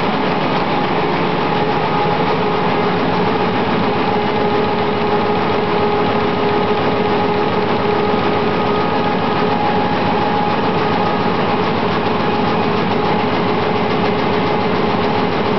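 Newspaper printing press running at speed: a loud, steady mechanical clatter with a constant hum underneath.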